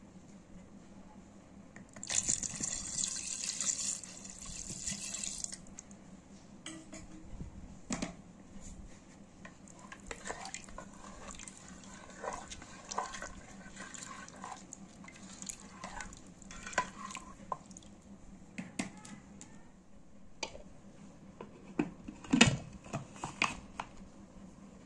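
Water poured into a pressure cooker of raw mutton for a few seconds, then a ladle stirring the meat and knocking and scraping against the pot, and near the end a few louder clanks as the pressure-cooker lid is fitted.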